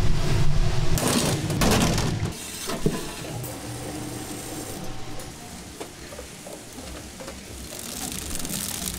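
A metal spatula stirring and scraping peanuts and syrup in a large wok, loudest for about the first two seconds, followed by the quieter whirr and light clatter of candy-cutting and wrapping machines.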